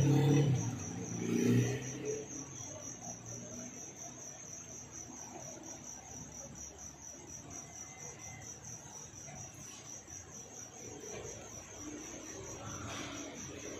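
A steady, evenly pulsing high-pitched insect trill like crickets chirping, over a faint low background murmur. A car's engine fades away in the first two seconds.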